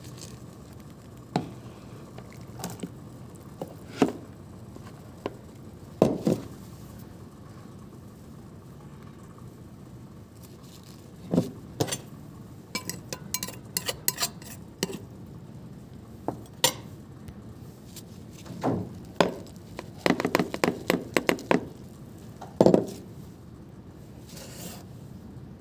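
Cutlery clinking and knocking against a dish: scattered single taps, with a quick run of them about twenty seconds in.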